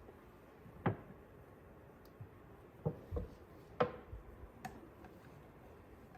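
A few light, separate knocks and clicks, about five over several seconds, from handling a motor-oil container while pouring it into the engine's oil filler.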